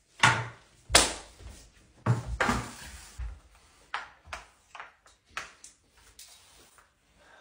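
A series of sharp knocks and thumps. The two loudest come in the first second, followed by a longer bumping cluster, then lighter scattered taps.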